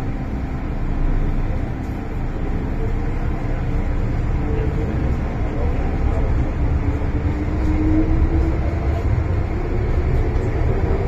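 MTR M-Train electric metro car running between stations, heard from inside the carriage: a steady low rumble of wheels on track, with a faint tone that rises in pitch about halfway through.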